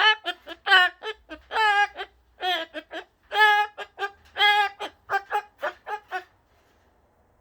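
A cockatoo singing a rapid sing-song string of short pitched syllables, some held and wavering. It stops about six seconds in.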